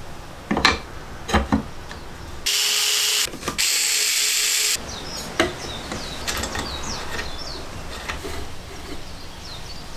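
Small electric screwdriver running twice, about a second each time, driving a screw into a wooden router-table frame. Wooden parts knock and click as they are handled and set in place around it.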